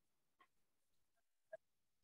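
Near silence on a video call, with one faint click about one and a half seconds in.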